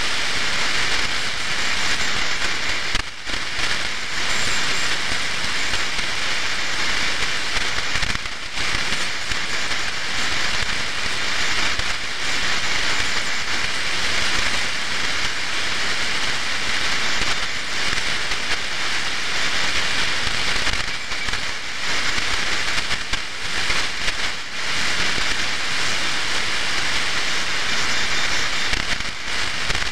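Shortwave receiver static on the 75-metre amateur band at 3.880 MHz AM with no station transmitting: a steady hiss with crackles and a faint steady high whistle, briefly dipping twice in the first ten seconds.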